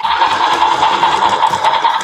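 Thomas and Friends Stop and Go remote-control toy train running, with a steady buzzing whir that starts suddenly.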